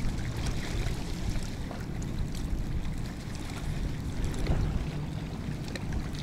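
Strong wind buffeting the microphone in a steady low rumble, with choppy water washing against a stony shore.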